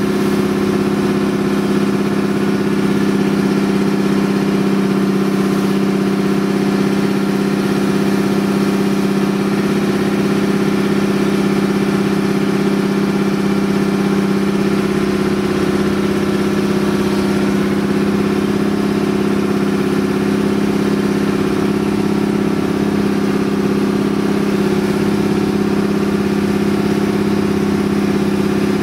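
Outrigger boat's engine running steadily at a constant speed, a continuous drone with no change in pitch.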